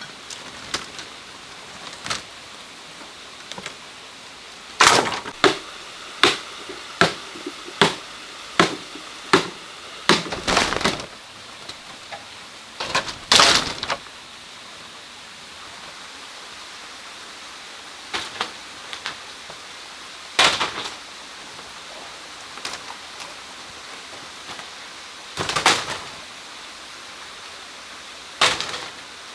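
Sharp strikes of a tool on bamboo or wood: a steady run of knocks about one every three-quarters of a second, then scattered heavier knocks and a few longer rustling scrapes, over a steady background hiss.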